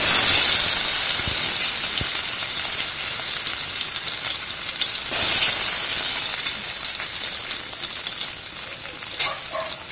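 Chopped garlic frying in hot cooking oil in a stainless-steel pot, a loud sizzle that starts all at once and slowly dies down. A fresh burst of sizzling comes about halfway through.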